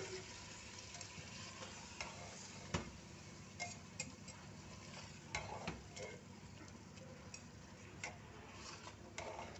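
A spoon stirring a thick chicken masala with curd in a metal pot, clicking and scraping against the pot's sides now and then, over a faint sizzle of the food frying.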